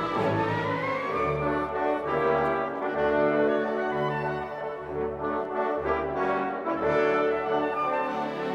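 Orchestral background music with brass, horns prominent, playing sustained chords that change about every second, after a rising sweep near the start.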